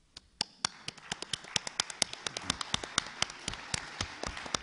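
Applause: sharp, distinct hand claps close to the microphones, several a second, over a wash of audience clapping that builds up within the first second.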